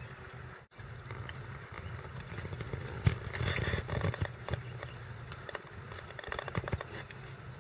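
A horse's hooves thudding softly on grass as it walks and trots, over a steady low hum; the loudest thump comes about three seconds in, with a cluster of them between four and seven seconds.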